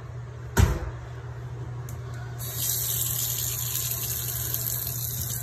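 A single knock about half a second in, then a bathroom sink faucet starts running about two and a half seconds in, a thin stream splashing steadily into the basin. The water pressure is kind of low.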